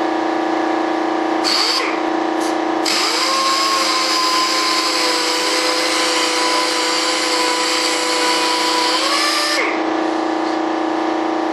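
Dual-action (DA) sander trimming the edge of a model jet fuselage. It gives a brief burst about a second and a half in, then runs for about seven seconds with a hiss and a whine that rises as it spins up and drops as it winds down. A steady hum underlies it throughout.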